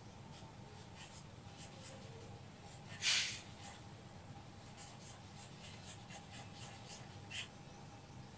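Marker pen writing on a whiteboard: a string of short, faint, high-pitched strokes, with one louder rasp about three seconds in.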